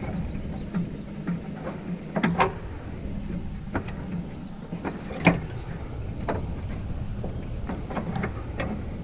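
Scattered light clicks and knocks of hands and tools working in the engine bay of an air-cooled VW engine as a spark plug lead is routed, over a steady low background rumble.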